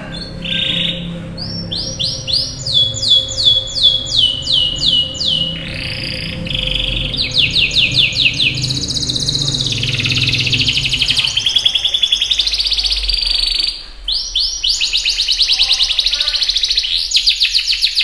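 Domestic canary singing a long, fast song of rapid rolling trills and runs of repeated downward-sweeping notes, with one brief break about three-quarters of the way through.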